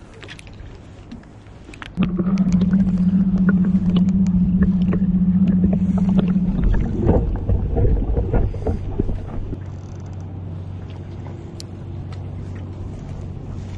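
Small boat's motor humming steadily. About two seconds in, a much louder steady hum cuts in for several seconds, then a few seconds of low rumbling, settling back to a softer steady hum.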